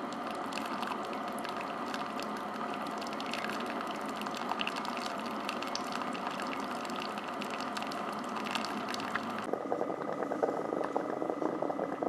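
Ninja DualBrew Pro's hot-water line dispensing boiling-setting water into a glass mug: a steady hiss of pouring, bubbling water with small crackles. About three-quarters of the way through, the high hiss drops away, leaving a lower, irregular gurgle as the flow tails off.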